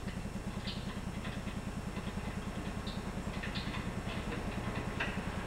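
A steady low hum that pulses rapidly, with a few faint clicks as a wrench loosens a table saw's left-hand-threaded arbor nut.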